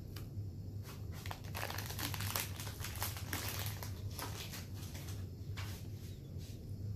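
Packaging of a box of chocolate wafers crinkling and rustling as it is torn open and handled, densest over the first few seconds, then a few light rustles near the end.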